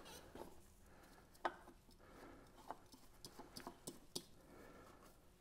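Faint scattered clicks and rubbing as gloved hands spin a new oil filter onto its mount on the outboard engine, hand-tightening it. The sharpest click comes about a second and a half in.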